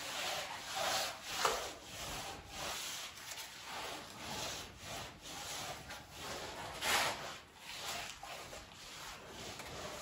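String mop scrubbing a rough stucco wall to wash off old kitchen grease: a run of uneven rubbing strokes, with one louder stroke about seven seconds in.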